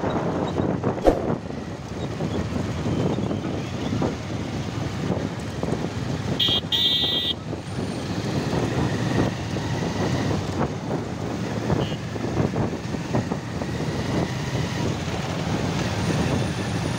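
A procession of motorcycles riding together, their engines running steadily under road and wind noise as heard from one of the bikes. A horn beeps briefly about halfway through.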